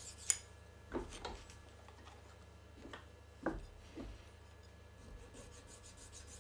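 A few scattered light knocks and clicks, about six in all, as small milled hard-PVC workpieces and a hand file are handled during deburring.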